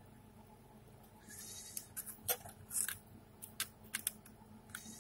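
Small clicks, taps and scrapes from handling a slim laptop DVD writer and working a small screwdriver against its plastic front bezel, scattered through the second half, after a brief rustle a little over a second in.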